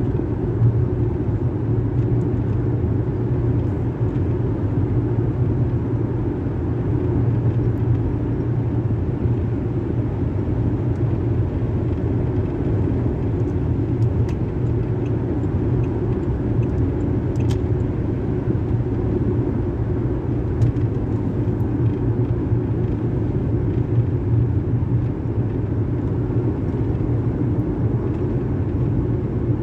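Car driving along a road, heard from inside the cabin: a steady low rumble of road and engine noise.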